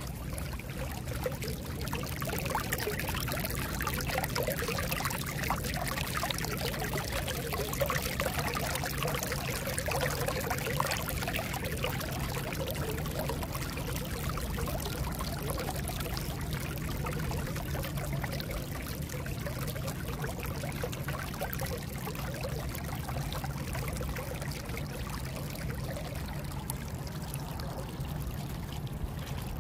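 Storm runoff welling up through two openings in a stone-covered drainage outlet and running off in a shallow stream, gurgling and trickling steadily. With the soil already saturated, the buried leach line is acting as a discharge line and pushing the water back out.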